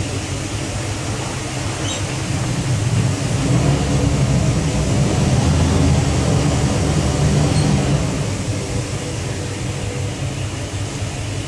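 Cabin cruiser's inboard engines running steadily underway, a low rumble that swells louder for a few seconds in the middle, with wind noise over it.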